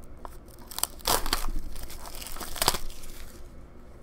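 Plastic shrink-wrap crinkling and tearing as it is pulled off a box of trading cards, with louder crackles about a second in and again near three seconds.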